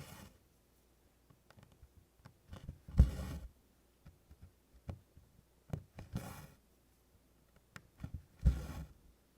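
Needle and cotton floss being pulled through 24-count canvas while tent-stitching: four soft swishes of thread drawn through, about three seconds apart, the second and fourth with a dull knock as they start, and faint clicks of the needle piercing the canvas in between.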